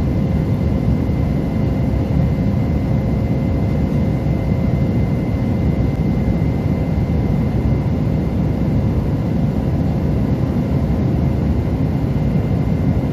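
Steady aircraft noise during climb-out after take-off: a loud, even low rumble of engines and airflow with a few faint steady tones on top.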